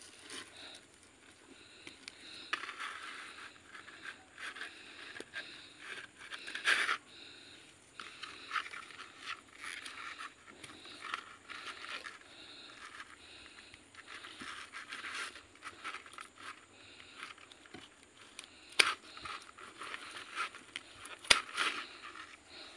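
Scraping and rustling of hands working a bare-rooted kimeng ficus trunk and its dry, fibrous roots while the split trunk is wedged and pressed, with a few sharp clicks, the loudest near the end.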